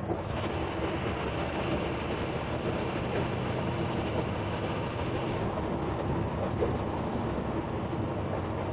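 Steady engine and road rumble heard inside the cabin of a moving bus, with a hiss in the upper range that eases about five seconds in.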